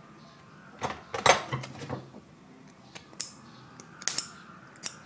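Several sharp clicks and light metallic clatter of small tools and parts being handled at an electronics repair bench, the loudest about a second in.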